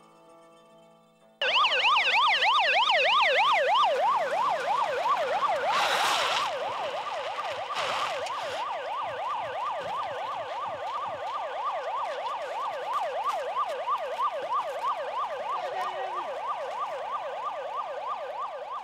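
Police car siren in a fast yelp, sweeping up and down about four times a second; it starts suddenly a little over a second in and drops somewhat in level about six seconds in. Two short bursts of noise cut through it a few seconds later.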